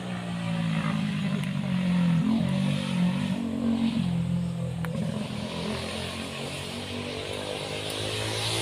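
An engine running, a low hum that wavers a little in pitch and is loudest in the first half.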